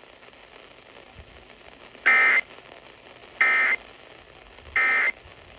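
Emergency Alert System end-of-message code over radio: three short, identical bursts of digital data tones, a little over a second apart, starting about two seconds in after a low hiss. They signal that the alert has ended.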